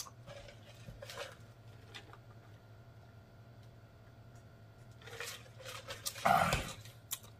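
A man drinking from a glass mug, then about six seconds in a short, loud throaty vocal sound as he lowers it with his mouth open.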